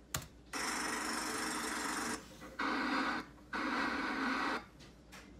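Television static hiss in three separate bursts, the first about a second and a half long and the other two about a second each, with short gaps of quiet between them. A single click comes just before the first burst.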